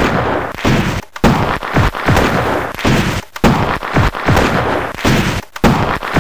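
Rapid series of artillery and explosion booms, about two a second, each dropping in pitch as it rumbles out.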